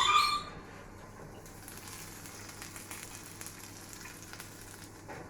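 Faint, steady sizzling of food cooking, with a short sharp sound at the very start.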